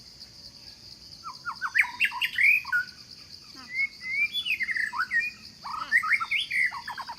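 Birds chirping: many short, quick calls rising and falling in pitch, starting about a second in, over a steady high-pitched insect drone.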